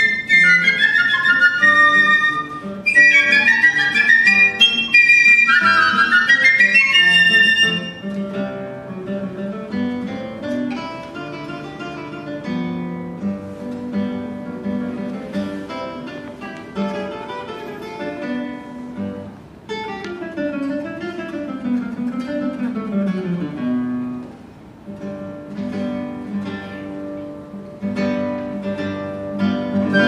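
Two piccolos play fast, high runs over a classical guitar. About eight seconds in the piccolos stop and the guitar plays a quieter solo passage, with falling runs a little past the twenty-second mark. The piccolos come back in at the very end.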